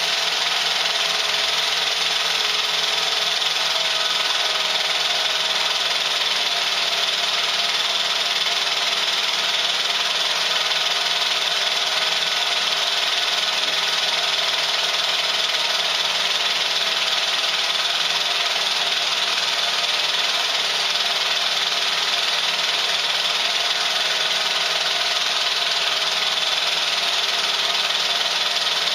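Pathescope 200B 9.5mm cine projector running steadily: an unbroken mechanical sound with several steady tones running through it.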